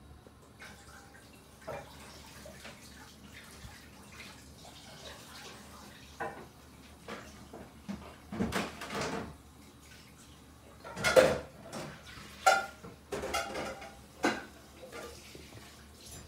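Kitten playing on its own, knocking and rattling small objects: irregular clatters and knocks, the loudest a cluster about two-thirds of the way through.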